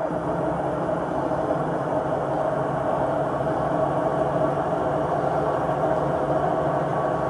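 Samsung WW80J5555FWEU washing machine drum spinning with a steady rumble and a constant hum, which the owner takes for worn, failing drum bearings.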